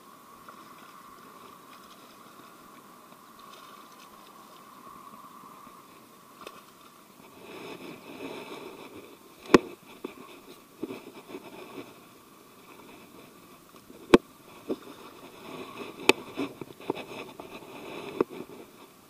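Spinning reel cranked with a steady whir for the first six seconds or so, then rustling brush and fishing-gear handling noise as a fish is netted, with four sharp knocks, the loudest about ten and fourteen seconds in.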